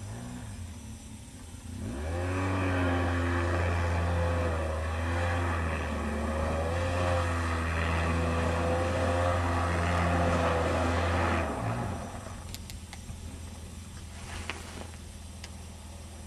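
ATV (four-wheeler) engine running hard, its revs wavering up and down for about ten seconds, then easing off to a lower hum with a few faint clicks.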